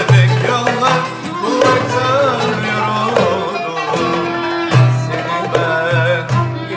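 A man singing a Turkish song in a wavering, ornamented voice over strummed acoustic guitar, with violin, kanun and darbuka playing along.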